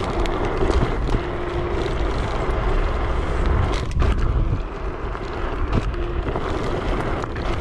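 Varla Eagle One 2.0 dual-motor electric scooter riding along rough asphalt: steady tyre rumble and wind on the microphone, with a faint steady hum from the hub motors coming and going.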